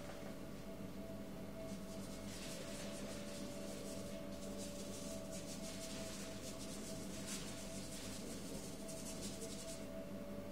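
Paintbrush scrubbing quickly back and forth against paper, starting about two seconds in and stopping shortly before the end, over a steady background hum.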